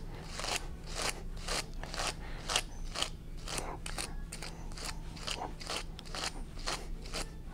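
Slicker brush's wire bristles raked repeatedly through a dog's long ear hair, a quick rasping scratch on each stroke, about two to three strokes a second. The scratching means dead hair and tangles are still being pulled out; it stops once the ear is fully brushed out.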